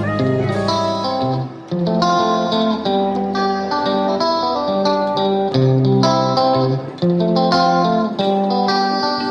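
Background music led by plucked guitar, playing a melody of short picked notes.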